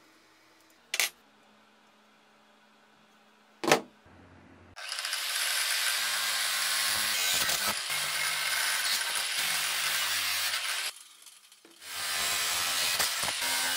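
Two sharp metal knocks, then a power tool working on steel with a loud, steady hiss for about six seconds. It stops for about a second and starts again near the end.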